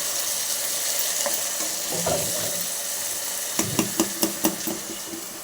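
Food sizzling in hot oil in a cooking pan while being stirred, with a quick run of about six utensil clinks against the pan about three and a half seconds in.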